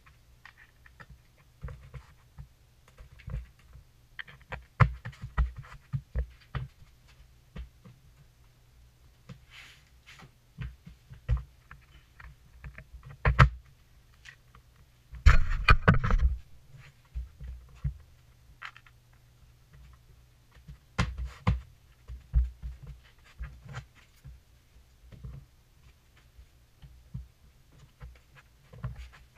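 Scattered knocks, taps and scrapes of tiles and tools being handled on a floor during a tile install, with a longer, louder scraping rustle about halfway through, over a steady low hum.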